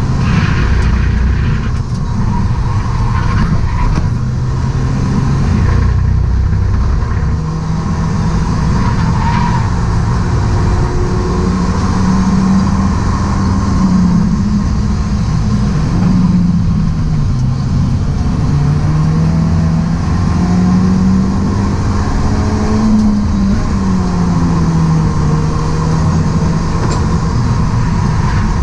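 BMW E36 Compact's engine heard from inside the cabin at speed on a track lap, its note rising and falling several times as the car accelerates, shifts and slows for corners, over steady road and wind noise.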